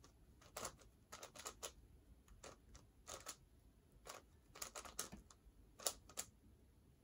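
Plastic speedcubing puzzle being turned by hand: irregular clicks and clacks of layer turns, some single and some in quick clusters, with short pauses between them.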